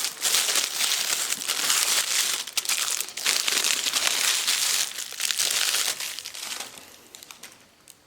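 Crinkly packaging of a new chainsaw cylinder and piston kit rustling and crackling as the parts are handled and unwrapped, dying down about six and a half seconds in.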